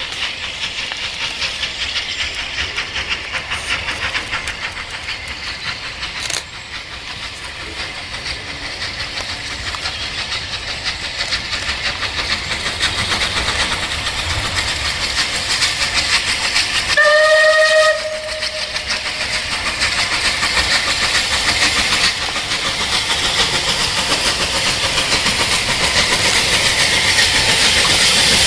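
Steam locomotive working, its rapid exhaust beats, hiss and rail noise growing steadily louder as it approaches. About seventeen seconds in it gives one short whistle blast of about a second.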